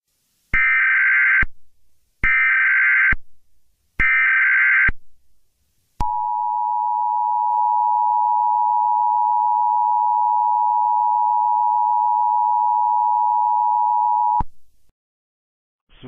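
Emergency Alert System header: three bursts of SAME data tones, about a second each, then the steady two-tone EAS attention signal held for about eight seconds and cut off abruptly. It signals the start of a Local Area Emergency alert from civil authorities.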